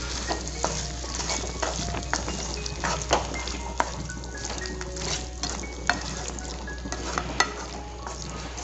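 Wooden spatula stirring and scraping thick mutton masala around a pan as it sizzles, with irregular scrapes and knocks against the pan over a steady frying hiss. The salt just added is being mixed through the mutton.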